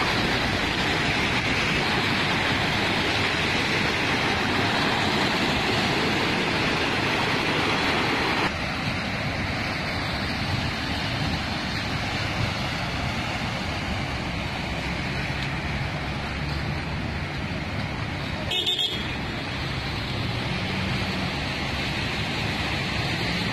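Traffic on a flooded road: car tyres swishing through standing water over running engines, a steady wash of noise that drops suddenly about eight seconds in. A brief knock comes near the end.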